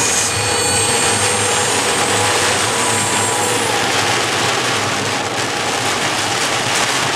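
Torrential rain pounding on a car's roof and windscreen, heard from inside the cabin as a loud, steady rushing noise while the car drives through it. A faint steady whine under the rain stops about four seconds in.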